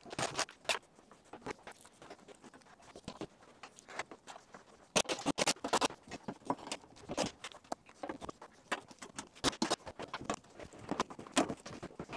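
Irregular clicks, taps and knocks of hands and a cordless tool working over a car's engine bay, with parts and fasteners being handled and set in place during reassembly.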